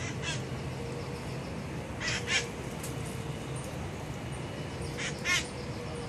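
Red-masked parakeet giving short, harsh screeching calls, a single one at the start and then quick pairs about two and a half seconds apart, over a steady low hum.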